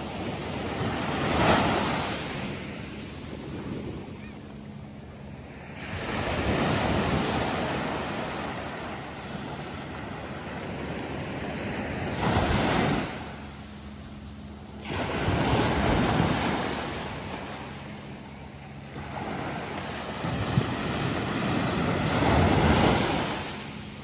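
Small surf breaking and washing up a sandy beach, swelling and fading about five times as each wave comes in, with wind buffeting the microphone.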